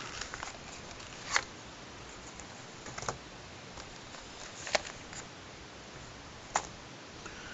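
Four short, sharp plastic clicks spaced a second or two apart, from handling a Blu-ray combo-pack case and its discs, over faint room hiss.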